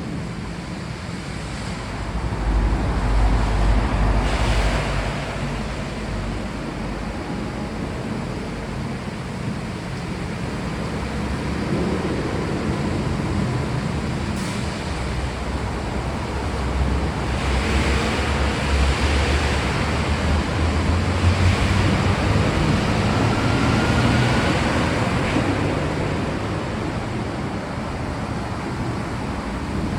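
Steady heavy rain, with low rolling thunder that swells about two seconds in and again in a longer rumble through the second half.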